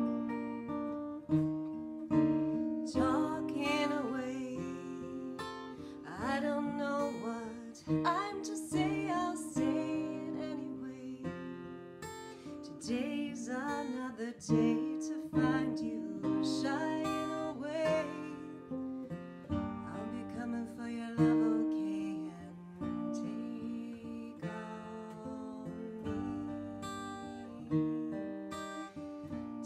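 Acoustic guitar playing an instrumental passage, plucked and strummed notes ringing on.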